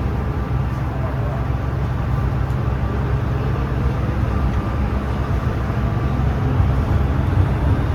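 MTR M-train electric multiple unit running as it pulls away from a station: a steady low rumble of wheels and traction equipment that grows slowly louder as the train gathers speed.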